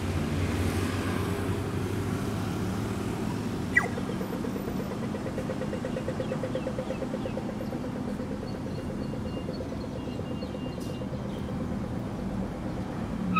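Road traffic going by: a steady rumble of cars and engines, with a sharp click about four seconds in and an engine hum for a few seconds after it.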